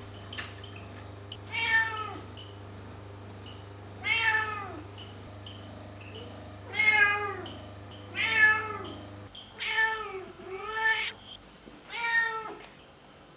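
Tabby cat meowing repeatedly: about seven drawn-out meows a second or more apart, each rising and then falling in pitch, with two coming close together near the end.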